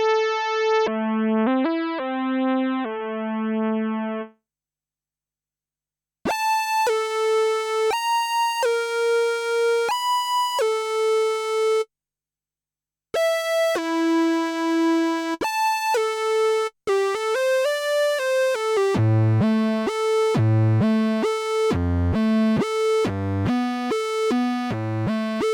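Kurzweil K2000 synthesizer factory programs played dry, with no effects: short melodic phrases of bright single notes. The sound falls silent twice, for about two seconds near the start and for about a second around the middle. Near the end it turns to quicker notes alternating with low bass notes.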